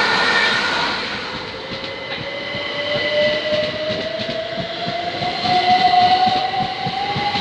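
Electric train pulling away. Its motors give a whine that rises slowly and steadily in pitch, with the wheels clattering over the rail joints.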